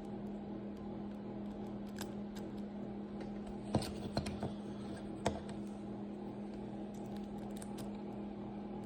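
Small metallic clicks and scrapes of a lock pick and tension wrench working the pins in the keyway of a Master Lock No. 1 padlock: a few scattered clicks, the sharpest about four seconds in, over a steady low hum.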